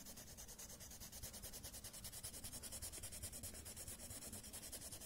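Red crayon scribbling on workbook paper, faint and quick back-and-forth strokes repeating several times a second as it shades in a drawing.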